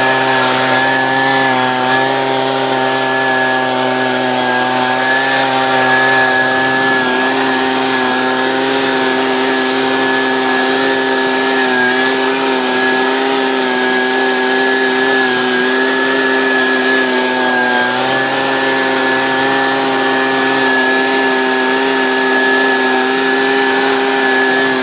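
Husqvarna 125B handheld two-stroke leaf blower running at a steady high throttle, blowing debris out of roof gutters, with the engine pitch dipping briefly a couple of times. It cuts off abruptly at the end.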